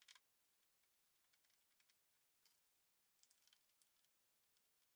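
Near silence, with faint scratchy ticks from a hand screwdriver turning small screws into brass hardware on a wooden chest lid, clustered about halfway through.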